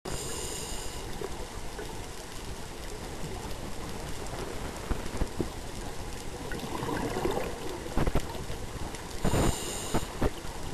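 Scuba breathing heard through the water: the regulator hisses on an inhalation in the first second and again about nine seconds in, with a burble of exhaled bubbles around seven seconds in and a few sharp clicks, over a steady underwater noise.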